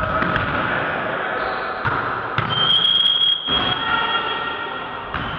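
Indoor volleyball game: the ball is struck several times, with echoing thuds in the hall. About two and a half seconds in, a steady high whistle sounds for roughly two seconds.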